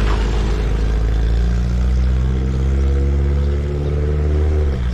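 A motor vehicle's engine running close by in street traffic, its pitch climbing slowly as it accelerates, then dropping suddenly near the end.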